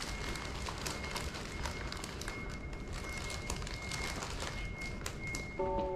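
Outdoor background noise with scattered light taps and a faint, steady high-pitched tone that comes and goes. Soft music with piano-like notes comes in near the end.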